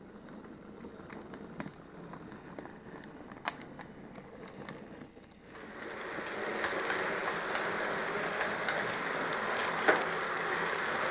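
Model railway locomotive and wheels running on the track: a faint run with scattered clicks over the rail, then, from about five seconds in, a louder steady rolling rush with irregular ticks of wheels crossing rail joints, heard close up from aboard the moving train.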